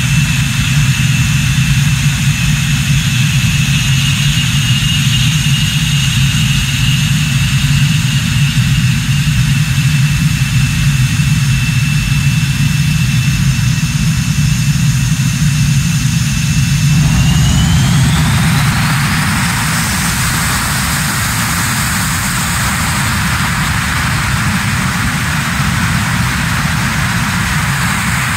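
Engines of Swiss Air Force F/A-18 Hornets, twin General Electric F404 turbofans, running on the runway: a steady high whine over a deep rumble. About two-thirds of the way through the whine rises in pitch and the sound turns into a broad rush as the engines spool up for the takeoff roll.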